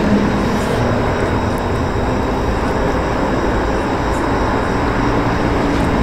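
Steady rumble of highway traffic, an even continuous noise without breaks.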